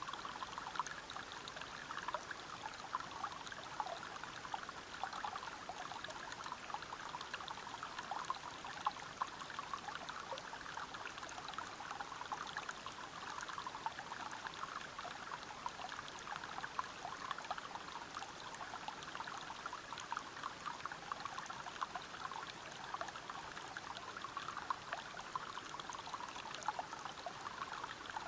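Water running and splashing over rocks in a forest stream below a small waterfall: a steady babbling rush full of small splashes.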